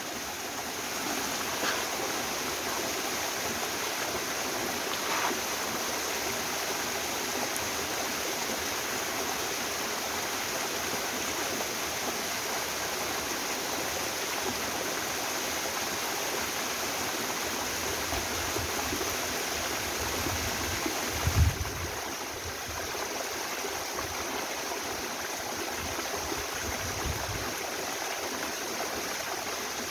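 Steady rush of a mountain-valley waterfall and the stream below it, a dense even splashing of falling water. Low rumbles come in during the last third, with one sharp thump about two-thirds of the way through.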